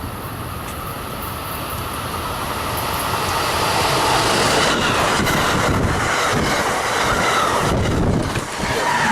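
Amtrak Keystone train passing through at speed without stopping. The rush of steel wheels on the rail builds over the first few seconds, stays loud, and a clattering over the rail joints comes in about five seconds in. The train's air blast is strong enough to nearly blow over a tripod.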